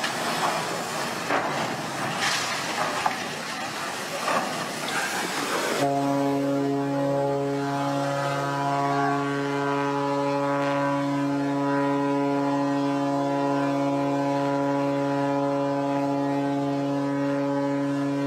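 A large ship runs up onto a beach with a rough, noisy rush of crashing and scraping. About six seconds in, a ship's horn sounds one long, steady blast that lasts until near the end.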